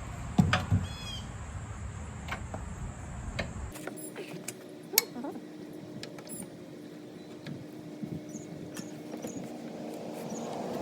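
Scattered clicks and knocks of hand tools and metal parts being worked on a zero-turn mower's hydraulic filter and reservoir, the sharpest knock about half a second in.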